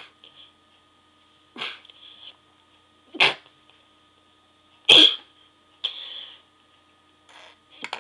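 A person sneezing several times in a row, each sneeze stifled into a short, sudden burst, the loudest about five seconds in.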